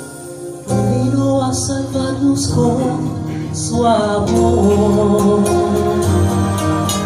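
Live band of piano, bass, drums and saxophone playing a soulful Christmas tune, with the full band coming in louder less than a second in.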